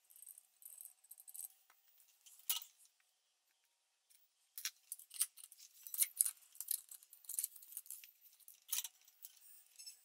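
Faint, scattered light clicks and scratches of wire and small metal parts being handled while soldering, with one sharper click about two and a half seconds in and a busier run of clicking through the second half.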